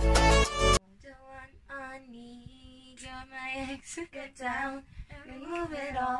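Loud backing music cuts off abruptly under a second in, then a female voice sings slow, wavering phrases unaccompanied.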